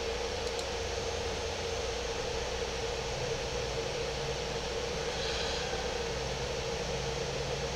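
Steady room noise: an even hiss with a constant mid-pitched hum and a low rumble underneath, unchanging throughout.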